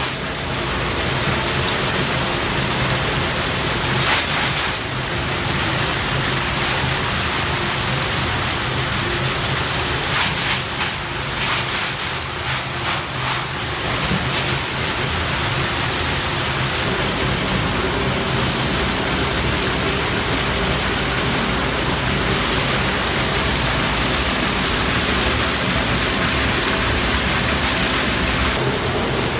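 Steady drone of running workshop machinery with a low hum, broken by short bursts of metallic clattering and water splashing about four seconds in and again from about ten to fifteen seconds in, as a perforated basket of small metal bulb-holder shells is handled and dunked in wash tubs.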